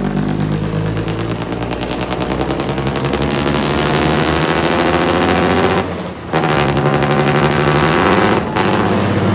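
Old FNM truck's diesel engine revved hard, its exhaust crackling in a rapid machine-gun-like rattle over a deep rumble, the pitch climbing slowly. The revs drop briefly about six seconds in and again near the end, then pick back up.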